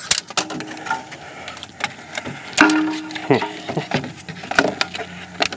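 Sharp metallic clinks and knocks, scattered irregularly, as an alternator is worked out of a cramped car engine bay past hoses and brackets, with a couple of brief squeaks.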